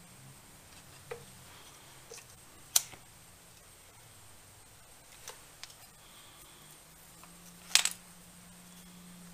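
A few small, sharp clicks and taps from hands working wires and a lighter at an electric PTO clutch on a concrete floor, over a low, steady background hum. The two loudest come about three seconds and about eight seconds in, the second a quick double click.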